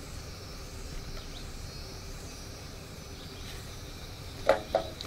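Steady outdoor background noise with faint insect chirring, and a brief voice near the end.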